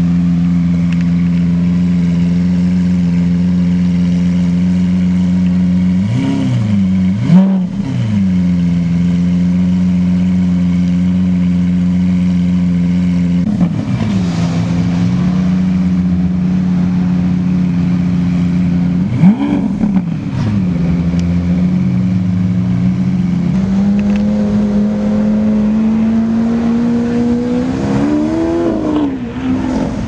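Lamborghini Aventador LP700-4's naturally aspirated 6.5-litre V12 idling steadily, with quick throttle blips about six, thirteen and nineteen seconds in and again near the end, the pitch shooting up and falling back each time. The blips at about seven and nineteen seconds are the loudest.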